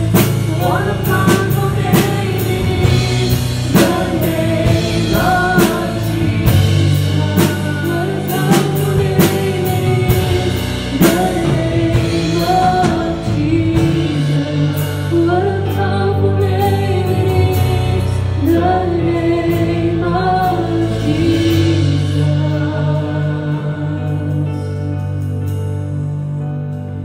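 Live gospel worship song: a woman singing the melody over a Roland electronic keyboard and a drum kit. Near the end the voice and drums drop away, leaving the keyboard holding the song's closing chords.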